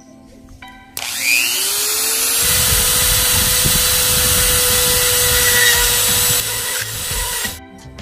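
A handheld rotary tool starts about a second in with a rising whine, then runs steadily as its bit bores out the hole in a small plastic brake light switch. It stops near the end.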